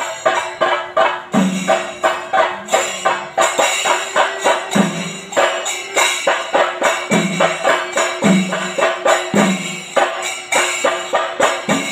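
Temple-festival percussion ensemble playing a fast, steady rhythm of about three strokes a second: sharp drum strokes with ringing metallic cymbal clashes, and a deeper drum beat every second or two.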